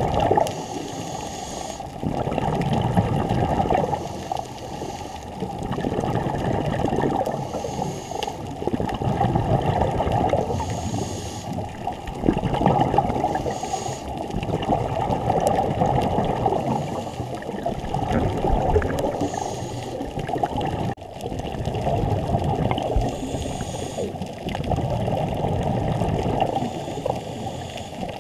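Muffled underwater sound of scuba breathing: exhaled bubbles gurgling and the regulator hissing on each inhale, in breathing cycles that swell and fade every few seconds.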